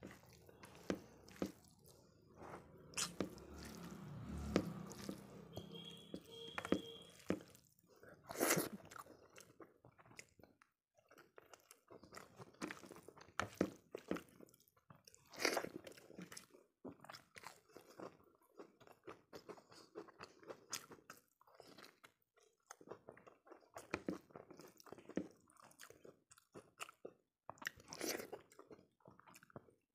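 Close-miked chewing of a mouthful of rice and Bengali vegetable dishes eaten by hand, with many short crunches and mouth clicks. A few sharper crunches stand out, about a third of the way in, at the middle and near the end.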